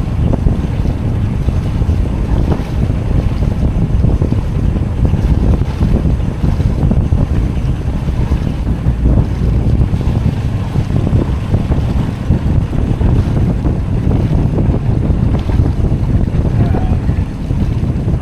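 Wind buffeting an action camera's microphone aboard a sailboat: a loud, steady, low rumble that flutters without letup.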